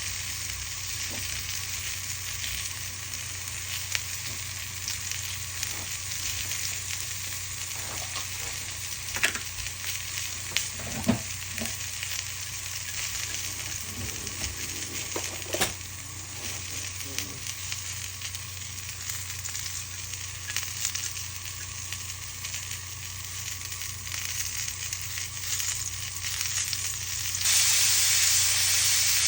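Buttered food sizzling steadily on a hot grill, with a few sharp clicks along the way. Near the end the sizzle suddenly grows louder and brighter.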